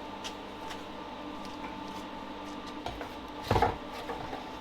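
Light clatter of items being handled on a workbench, with one louder knock about three and a half seconds in, over a steady background hum.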